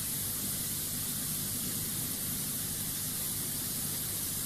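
Steady hiss with a faint low hum: the background noise of the test recording between spoken questions.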